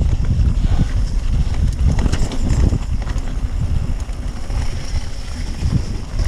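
Mountain bike ridden over a rough off-road trail: a steady low rumble of wind buffeting the camera microphone and tyres on the ground, with a few sharp rattling clicks from the bike.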